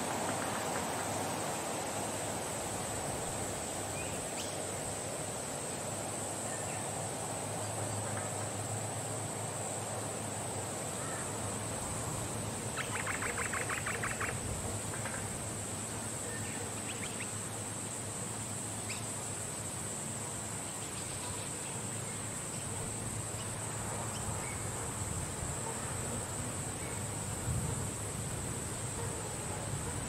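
Nature ambience: a steady high insect drone over an even hiss, with a few faint chirps and a brief rapid trill about 13 seconds in.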